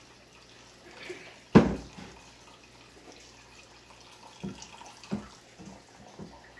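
Blended tiger nut milk pouring and dripping through a fine mesh strainer into a stainless steel pot. A single loud knock comes about one and a half seconds in, and a few lighter knocks and taps follow near the end as the strainer and spoon are handled.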